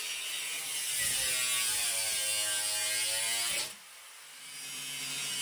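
Angle grinder with a cutoff wheel cutting a steel motorcycle rear fender: the motor's pitch sags as the wheel bites into the metal and recovers. The cut stops abruptly a little under four seconds in, then the grinder runs on, growing louder.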